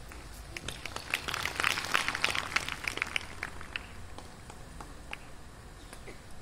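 Scattered hand clapping from a small crowd, a flurry of quick claps that thins out and dies away after about three and a half seconds.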